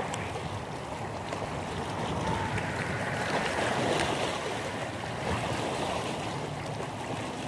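Small waves lapping and washing against a rocky shoreline, a steady rushing noise that swells gently, with some wind noise on the microphone.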